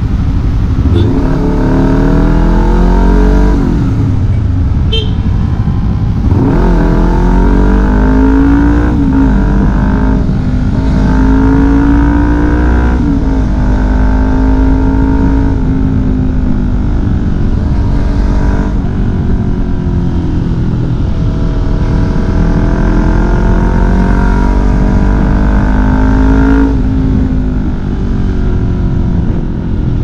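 Honda CBR250RR engine through a Leovince LV One slip-on exhaust with its dB killer fitted, revving up through the gears under way. The pitch climbs and then drops at each gear change, several times over, then holds steadier while cruising.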